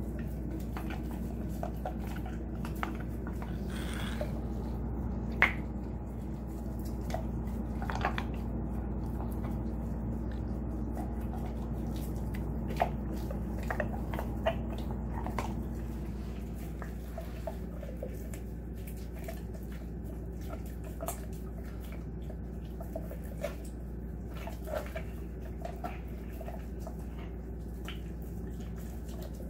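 Alaskan Malamute gnawing a raw beef rib: wet chewing, licking and smacking with scattered sharp clicks of teeth on bone, over a steady low hum.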